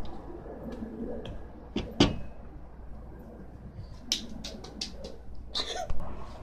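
Slime being stirred in a bowl: irregular soft squelches and clicks, with a sharper knock about two seconds in and a cluster of clicks in the second half.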